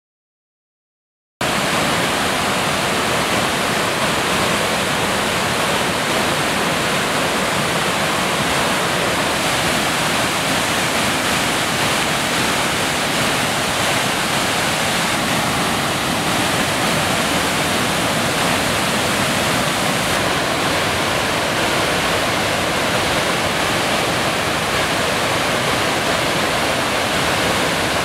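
Otoji-ga-taki, a wide, low river waterfall, pouring over a rock ledge into churning water: a steady, unbroken rush of falling water that cuts in suddenly about a second and a half in.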